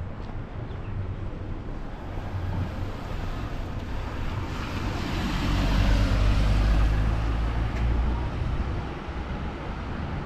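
Street traffic noise, with a vehicle passing close by: it swells from about four seconds in, is loudest around six to eight seconds, and fades away again, over a steady low rumble.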